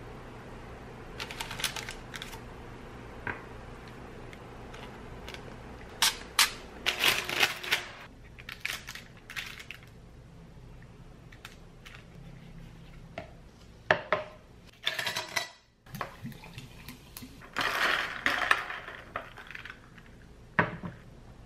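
Kitchen handling sounds: tongs and dishes clicking and clinking, and parchment paper crinkling, in several short clusters. A low steady hum underlies the first several seconds.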